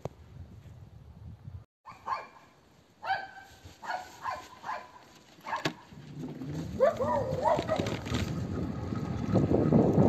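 A dog barking several times in short calls, then giving a few drawn-out, wavering calls. Near the end a rush of noise rises and becomes the loudest sound.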